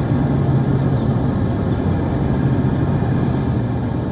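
Steady, loud engine rumble with a constant low hum under a broad roar, of the kind heard near running aircraft or airside vehicles.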